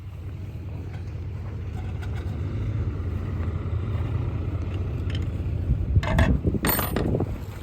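A motor vehicle's engine running with a low, steady rumble that grows louder over the first few seconds. Two short, loud clattering noises come about six and seven seconds in.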